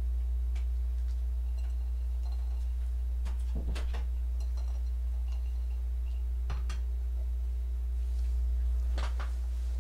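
Steady low hum with a few faint knocks and clicks, about four, spread out and spaced a couple of seconds apart.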